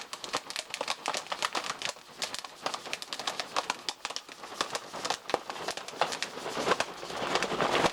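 Popcorn kernels popping: many rapid, irregular pops and crackles, building toward the end.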